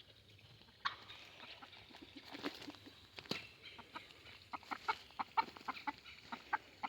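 Chickens clucking faintly, a run of short, quick clucks in the second half, with a couple of sharp clicks before it.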